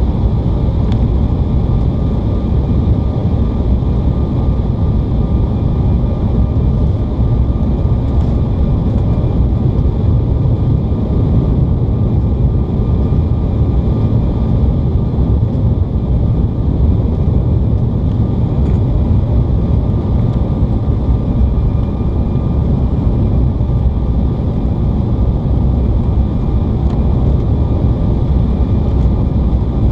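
Steady cabin noise of an Embraer E175 airliner on final approach: a constant low rush of airflow and its CF34 turbofan engines, with a faint steady whine above it.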